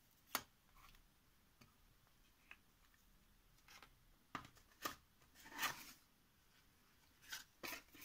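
Sparse light clicks and taps with one brief rustle: a small plastic measuring cup, a pocket digital scale and a cardboard box of paint jars being picked up and set down on a wooden tabletop.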